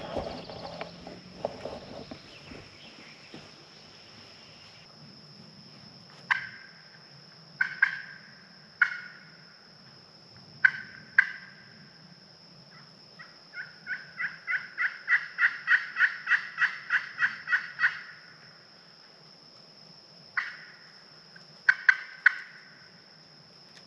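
Turkey yelps: scattered single yelps, then a long run of about twenty evenly spaced yelps, about four a second, growing louder, then a few more yelps near the end. A steady high insect drone runs underneath.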